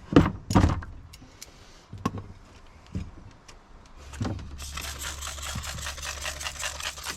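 Thumps and knocks of a riding mower tire and rubber inner tube being handled and pushed onto the rim: two heavy thumps at the start, then single knocks. About four seconds in, a steady crackly rustling with a low hum under it begins and runs on.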